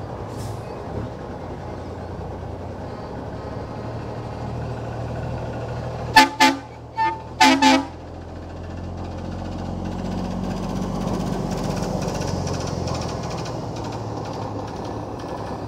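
Heavy trucks running past at parade pace, with a truck horn giving four short toots in two pairs about six and seven and a half seconds in. A truck engine grows louder past the ten-second mark as a tipper truck passes close.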